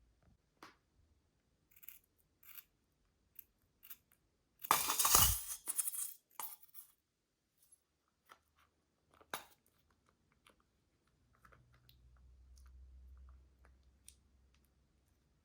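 Slime being handled by hand: scattered small clicks and crackles, with a louder, denser stretch of crackling about five seconds in.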